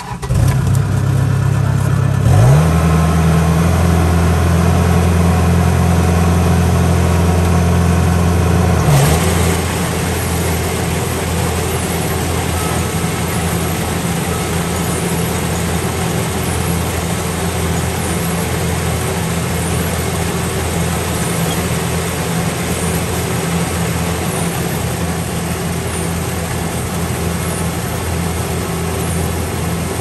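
Rice harvester's engine running loud and steady. It steps up in pitch about two seconds in, and from about nine seconds the even hum gives way to a rougher, noisier running.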